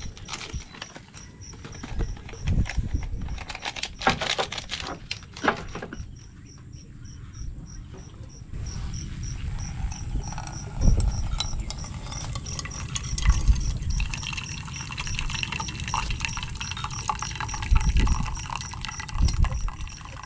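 Ground coffee tipped from a glass jar into a paper filter, with rattling and clinking over the first few seconds. From about eight seconds in, water is poured from a kettle onto the grounds in a steady hissing stream, with a few low thumps along the way.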